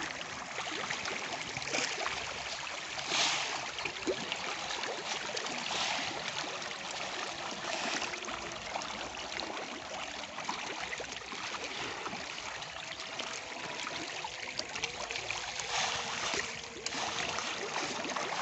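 Water splashing and churning as a crowd of Nile tilapia thrash at the surface of a floating net cage, feeding. It is a continuous crackling patter with a few louder splashes scattered through.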